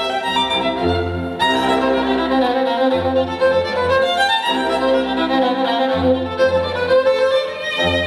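Violin-led music over a low bass line, played back through a portable Bluetooth speaker.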